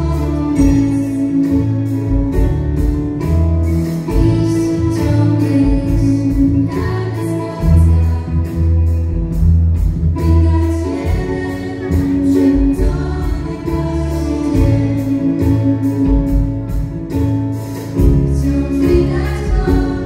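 Girls' choir singing a pop song with a live band of keyboards, violins, bass guitar and drum kit, with a steady drum beat.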